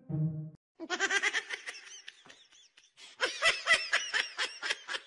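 A person laughing hard in rapid, high-pitched bursts, starting about a second in and getting louder a little past the middle. A brief snatch of music ends just before the laughter.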